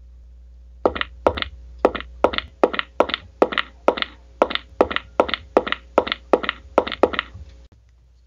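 A quick run of about seventeen sharp taps or knocks, roughly three a second and often in pairs, over a faint low hum; the taps stop about seven seconds in.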